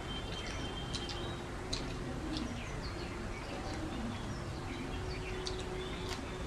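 Eating by hand: wet rice being mixed and chewed, with short mouth and finger sounds scattered throughout, while birds call in the background.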